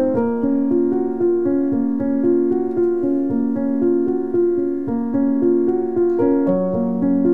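Background piano music, a slow run of sustained notes.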